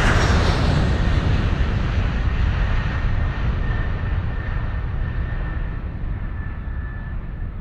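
Sound effect of a defrosting machine running: a steady, engine-like drone with a rushing, windy hiss over a low rumble, slowly fading. A faint thin whine joins it about three seconds in.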